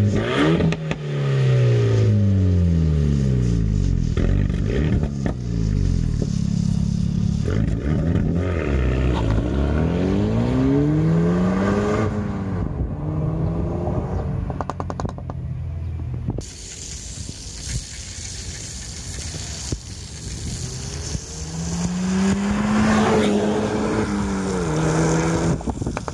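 Renault Mégane R.S. Trophy's 1.8-litre turbocharged four-cylinder accelerating away hard, its engine note sweeping up and dropping back with each gear change as the car pulls off into the distance. Later a fainter run farther off, with the engine note rising and falling once over a rushing noise.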